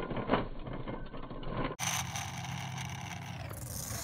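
A battery-powered Lightning McQueen toy car driving and tumbling over rubber mulch, with a rough crunching and clattering and a sharp click shortly after the start. After a cut about halfway in, a steadier hum with hiss follows.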